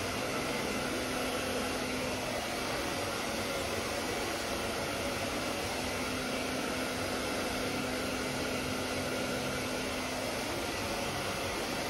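Handheld hair dryer running steadily, blowing a constant rush of air, with a faint hum that comes and goes.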